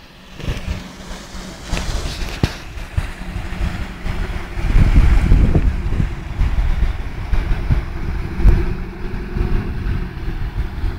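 Motor cruiser's engine running as it passes close by, a low rumble that grows louder about four and a half seconds in, with its wake washing and wind buffeting the microphone.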